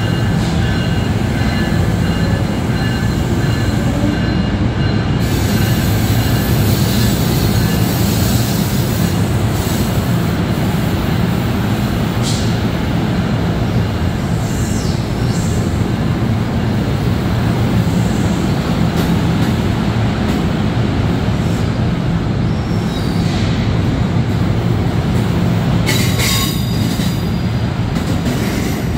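Departing NJ Transit MultiLevel bi-level coaches rolling past on the platform track: a loud, steady rumble of wheels on rail with thin, high-pitched wheel squeal over it. A short cluster of sharp rattles and clanks comes near the end.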